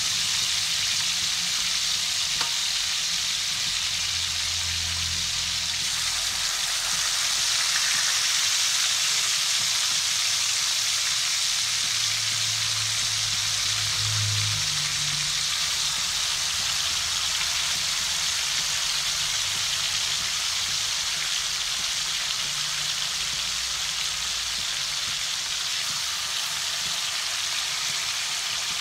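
Pieces of lizardfish marinated with shallot, pepper and chili frying in hot oil in a wok: a steady, even sizzle.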